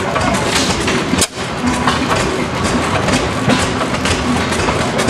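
Economy stationary gas engine running, with a steady rhythmic clatter of its firing strokes and moving parts.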